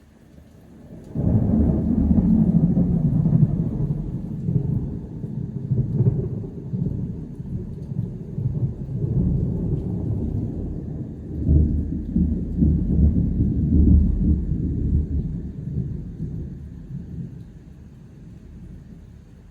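Thunder: a crack that starts suddenly about a second in, then a long low rumble. The rumble swells again about halfway through and slowly fades away near the end.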